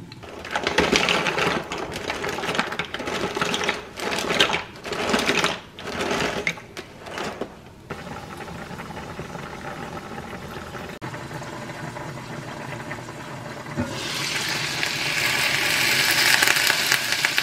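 Several seconds of irregular bursts of noise, then a pot of pasta boiling steadily under a glass lid. About fourteen seconds in, a louder high hiss takes over: meatballs sizzling as they brown in a frying pan.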